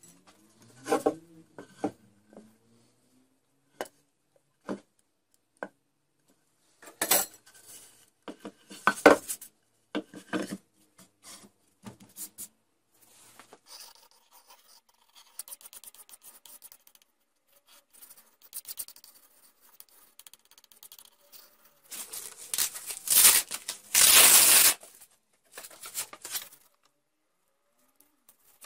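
Hand work on a workbench: scattered clicks and taps, and short scraping and rubbing noises of tools and hook-and-loop fabric on an MDF disc. Near the end comes a loud, harsh rasping noise lasting about two to three seconds.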